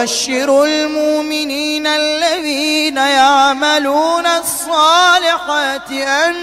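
Solo male Quran recitation in the Warsh reading, chanted melodically: a long held note that after about two seconds breaks into wavering, ornamented turns.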